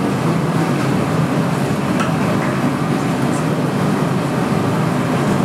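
Steady low rumble of a gas-fired glory hole burning while a blowpipe of hot glass is turned inside to reheat it.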